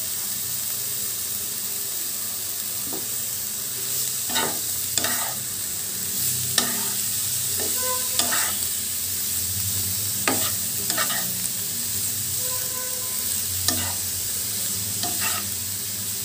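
Shredded cabbage sizzling in oil in a frying pan, stirred with a wooden spatula. From about four seconds in, the spatula scrapes and knocks against the pan every second or two.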